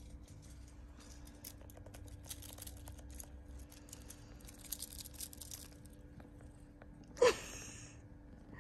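Faint crinkling and rustling as a feather teaser toy is waved and the cat shifts in sheer fabric. About seven seconds in there is one short, loud sound that drops steeply from high to low pitch.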